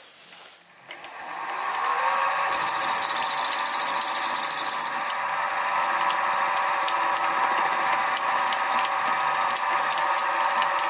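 Sieg SX2P mini mill spindle starting up about a second in and then running steadily with a whine while its end mill cuts the side of a Stuart 10V eccentric strap. A high hiss comes in from about two and a half to five seconds in.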